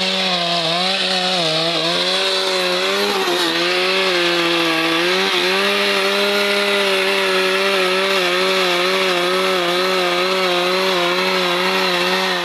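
Husqvarna two-stroke chainsaw running at high revs, cutting eucalyptus wood, its steady pitch sagging slightly now and then as the chain bites under load.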